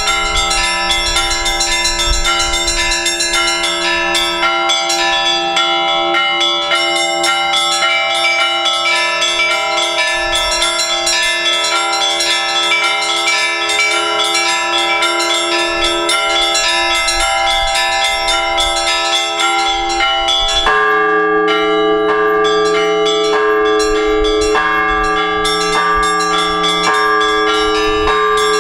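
Orthodox church bells ringing from the bell tower to call the faithful to the all-night vigil: many strokes overlap, the bells ringing on into one another. About two-thirds of the way through, the ringing changes to a new set of deeper tones, struck about every two seconds.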